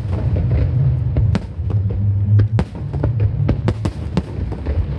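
Fireworks bursting in a quick run of sharp cracks, several a second, over a continuous deep low rumble.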